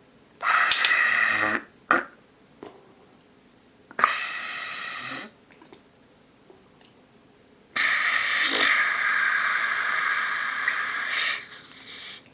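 Pearl-bead slime being squeezed, pushing out trapped air in squelching noises: one lasting about a second, a brief one just after, another about four seconds in, and a long one of three to four seconds near the end.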